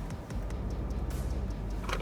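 Background music over a low, steady rumble.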